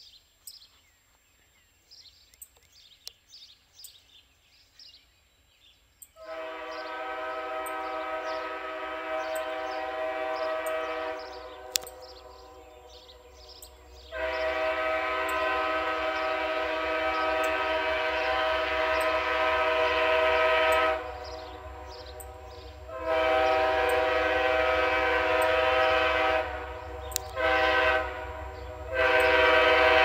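An Amtrak locomotive's Nathan K5LA five-chime air horn sounds a chord in a string of long blasts broken by short gaps, with one brief toot near the end. This is a friendly horn show from the engineer, not a standard crossing signal. Faint bird chirps are heard before the horn starts about six seconds in.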